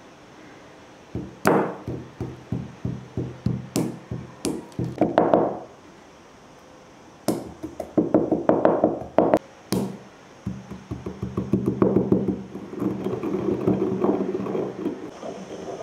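Stone pestle pounding star anise seeds in a stone mortar: quick knocks, two or three a second, a short pause, then more pounding that gives way to steady scraping as the seeds are ground down.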